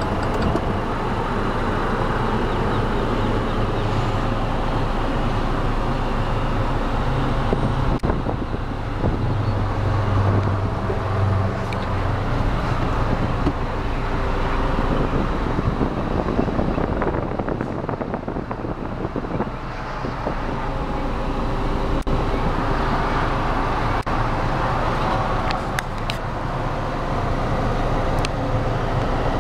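Mitsubishi Fuso FE180 medium-duty truck's diesel engine idling steadily, heard from inside the cab, with a few light handling clicks.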